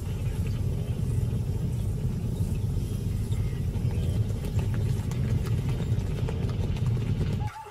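Hooves of a migrating herd of wildebeest and zebras on the move: a dense, steady low rumble of trampling that cuts off abruptly just before the end.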